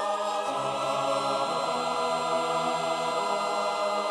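Background music: slow, held chords with no beat, moving to new chords a couple of times.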